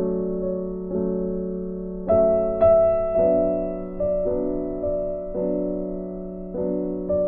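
Background music: a soft piano-like keyboard playing slow sustained chords, a new chord struck about once a second and left to fade.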